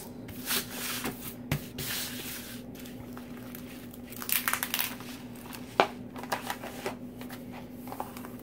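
Hands rubbing and smoothing the plastic cover film of a diamond painting canvas, the sheet rustling and crinkling in several short bursts as a corner is lifted and pressed back down, with one sharp tick about six seconds in.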